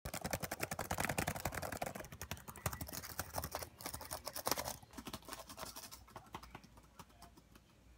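Fast typing on a laptop keyboard: a quick, dense run of key clicks that thins out and stops about six seconds in.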